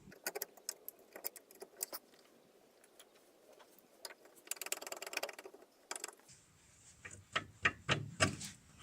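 Light metal clinks and rattles of hand tools and drum-brake parts being handled: a string of sharp clicks, with a busier run of clinking about halfway through and another near the end.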